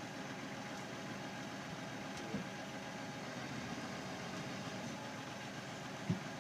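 A vehicle engine running steadily at idle, with two short low thumps, a faint one about two seconds in and a louder one near the end.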